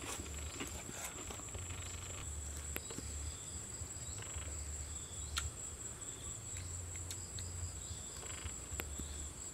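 Insects trilling in a steady high drone, with a softer pulsing chirr coming and going beneath it and a few sharp clicks.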